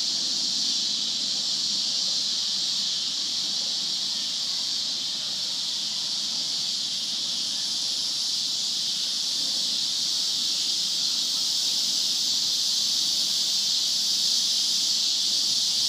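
Chorus of cicadas buzzing in a continuous, very loud high-pitched drone that holds steady without a break.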